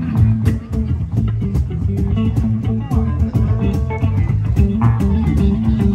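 A band playing blues-rock: guitar lines over bass guitar and a drum kit keeping a steady beat.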